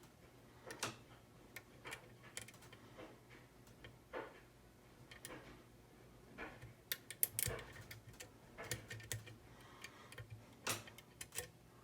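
Light metallic clicks and taps at an uneven pace as a lock pick works the pin stacks of an ERA rim cylinder, busiest about seven seconds in.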